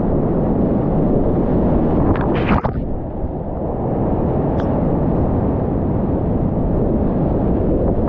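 Whitewater rapids of a river in high flood rushing around a kayak: a loud, steady, deep rush of churning water, with a brief splash about two and a half seconds in.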